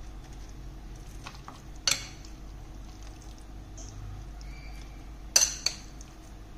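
A metal spoon clinks twice against a ceramic plate while minced pork filling is spooned out, once about two seconds in and again, louder, near the end.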